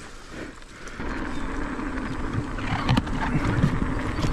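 Mountain bike being ridden on a trail: tyre and wind noise with a steady hum, and a few sharp knocks and rattles from the bike, about three seconds in and again near the end.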